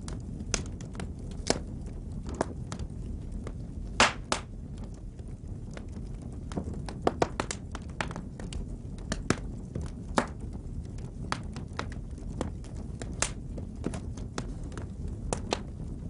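Wood fire burning in a fireplace: a steady low rumble of flames with frequent sharp crackles and pops from the burning logs, the loudest pop about four seconds in.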